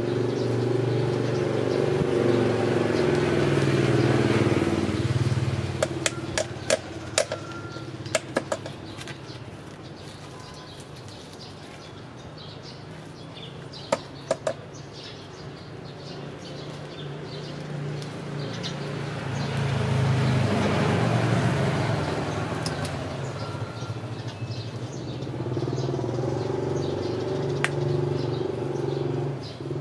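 Passing motor-vehicle engines, droning as they swell and fade: one at the start and another from about twenty seconds in. Several sharp clicks come between them.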